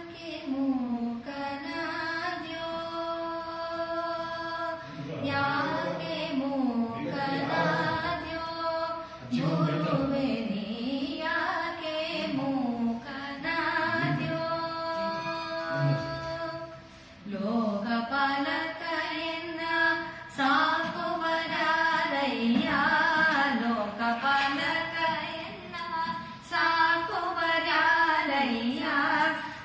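A woman singing a devotional song in Carnatic style, holding long notes and bending and ornamenting the pitch between phrases, with a short pause about halfway through.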